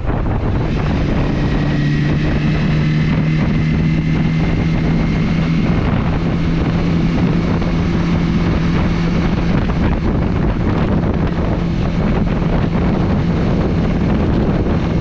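Honda CBR300R's single-cylinder engine running at a steady cruise, its note holding pitch, under loud wind rush on the microphone.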